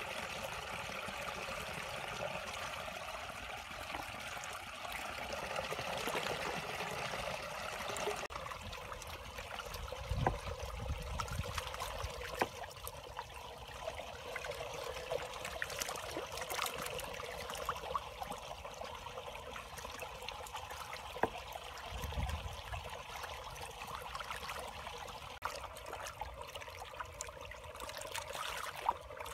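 Shallow muddy water running and trickling steadily through a narrow channel, with a few short knocks or splashes here and there.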